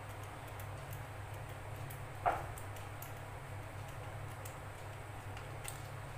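Faint irregular clicking of a screwdriver turning a screw into a PVC pipe hacksaw handle, over a steady low hum, with one short squeak a little over two seconds in.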